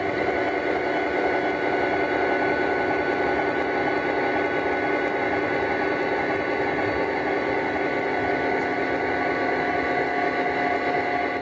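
Lionel O-gauge model train running past on FasTrack, its passenger cars rolling by with a steady humming rumble.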